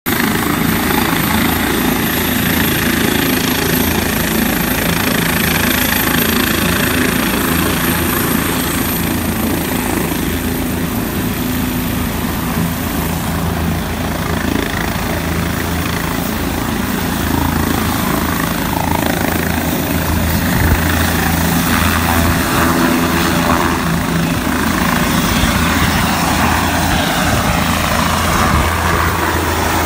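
Air-ambulance helicopter's rotor and turbine engine running steadily on the helipad, then lifting off and climbing in the last seconds.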